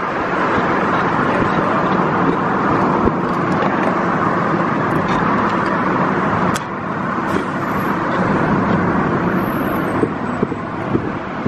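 Steady engine and tyre noise of a car driving through city traffic, heard from inside the cabin, easing slightly about six and a half seconds in.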